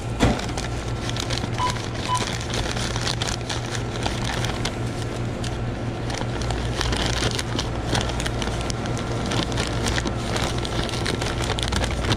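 Brown paper takeout bag crinkling and rustling in irregular crisp crackles as it is handled and its top folded over, over a steady low hum.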